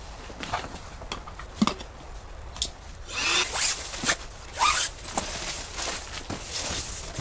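A zipper pulled in a series of short strokes, among scattered clicks and rustles, busiest and loudest in the middle.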